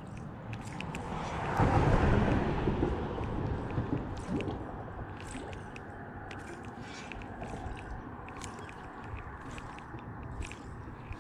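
Spinning reel being cranked to retrieve a popper lure, giving scattered small clicks and ticks. A louder rush of noise swells and fades about two seconds in.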